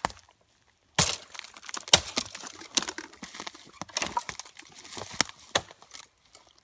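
Dry wood cracking and snapping in irregular sharp bursts, with the two loudest cracks about one and two seconds in, followed by a run of smaller crackles.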